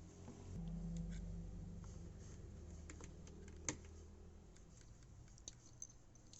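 Scattered light clicks and taps over a low hum that comes in about half a second in and fades away over a few seconds.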